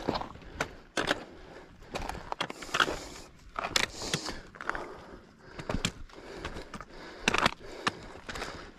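A hiker's footsteps on a rocky trail: boots scuffing and crunching on loose stones, with trekking-pole tips clicking against rock, in an irregular walking rhythm.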